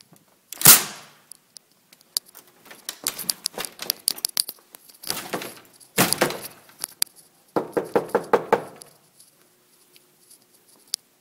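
Closed wooden door being banged on hard: a loud bang about a second in, a scatter of knocks and rattles, another heavy bang about six seconds in, then a quick run of knocks just before eight seconds.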